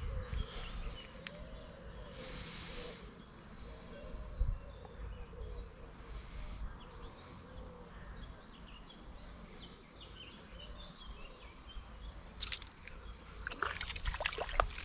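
Small birds chirping over a low, fluctuating rumble by the lake. Near the end there is a quick flurry of sharp clicks and scrapes as a small perch takes the float-fished micro lure and is hooked.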